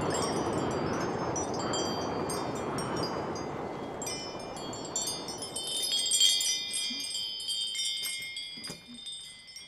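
A rush of wind noise for the first few seconds, then a wind chime tinkling from about four seconds in, its rods set ringing by hand, loudest about six seconds in and dying away near the end.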